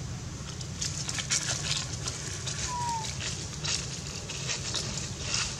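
Irregular crackling and rustling of dry leaves over a steady low rumble, with one short falling squeak about three seconds in.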